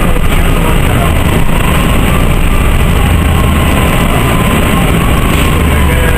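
Cabin noise aboard a moving Orion V CNG transit bus: its Detroit Diesel Series 50G natural-gas engine running under way, mixed with road noise, in a steady, loud drone.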